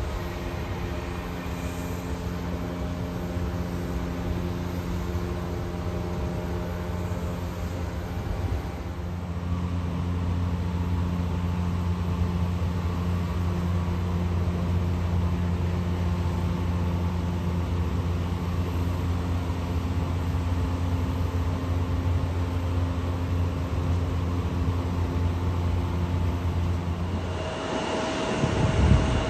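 A steady low engine drone at constant pitch. It cuts off abruptly near the end, followed by a brief thump.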